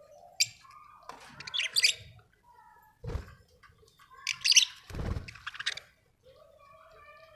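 Budgerigars chirping and warbling in short bursts, with two low thuds, about 3 and 5 seconds in.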